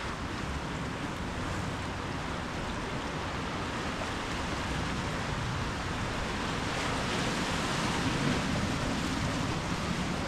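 Ocean surf: waves washing onto the shore in a steady rush, with a wave breaking a little louder about seven seconds in.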